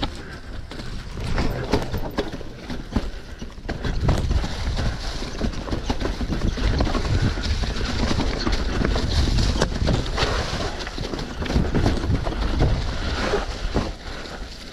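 Mountain bike descending a rough downhill trail: tyres rumbling over dirt and the bike rattling with many sharp knocks over roots and rocks, with wind buffeting the camera's microphone. It gets louder about four seconds in.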